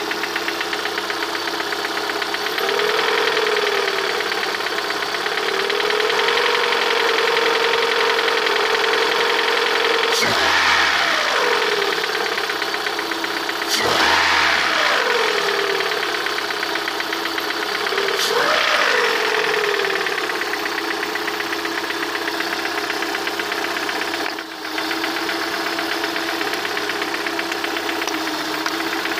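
Lada VAZ-21126 1.6-litre sixteen-valve engine running warm at idle, blipped three times so the revs climb sharply and fall back. A knock in the engine is what is being listened for, and its cause is unknown to the owner.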